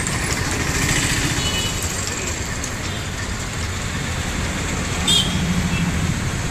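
Busy city street traffic: a steady low rumble of passing vehicles, with one brief, sharper, higher sound about five seconds in.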